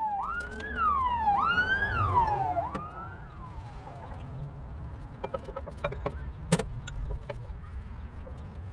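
A siren wailing in rising and falling sweeps, about one a second, fading out after about three seconds. After it come scattered light clicks and one sharp knock.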